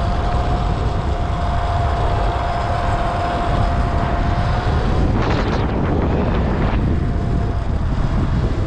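Wind buffeting the microphone at riding speed over the steady whine of a Sur-Ron X electric dirt bike's motor held at an even speed, with a brief louder rush of noise about five seconds in.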